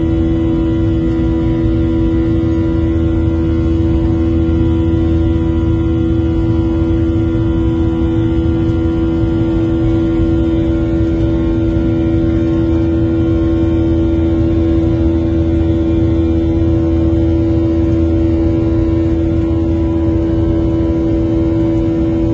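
Boeing 737-800 making a steady, loud drone: one strong unwavering tone with fainter tones above it, over a constant low rumble, unchanged throughout.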